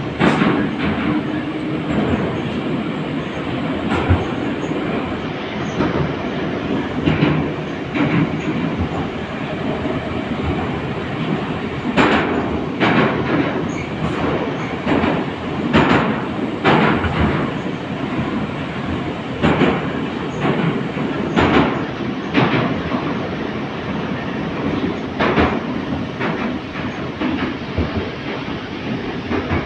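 Type 81-722.1 metro car running at speed in the tunnel, heard from inside the passenger saloon: a steady loud rolling rumble with sharp clickety-clack of the wheels over rail joints every second or few.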